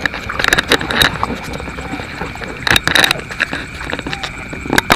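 Paddy water splashing and sloshing in several short bursts as someone wades and works through a flooded rice field.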